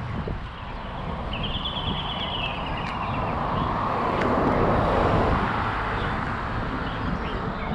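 Wind rushing over the microphone and road noise during a bicycle ride, building to its loudest about halfway through and then easing.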